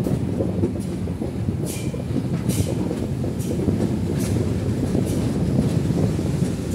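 A steam locomotive running along the line, heard from on board: a steady heavy rumble of wheels and running gear, with a faint hissing beat about once a second.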